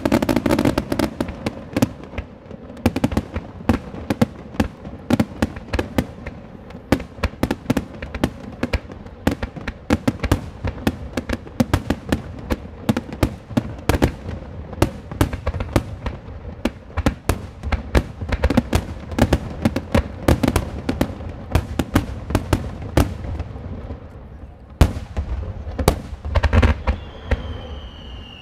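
Fireworks display in a rapid-fire barrage: aerial shells bursting in quick, overlapping bangs and crackles, several a second. A short lull about 24 seconds in gives way to a run of heavier, deeper booms.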